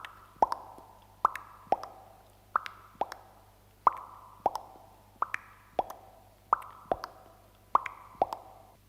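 Mouth-made pops, like water drops plopping, coming in pairs: a higher pop, then a lower one. Seven pairs repeat about every 1.3 seconds.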